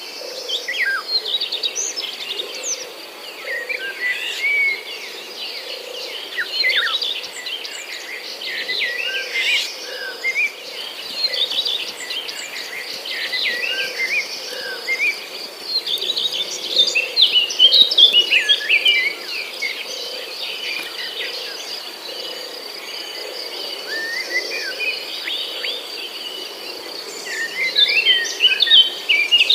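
Several birds chirping and calling in quick, overlapping phrases over a steady high-pitched insect trill.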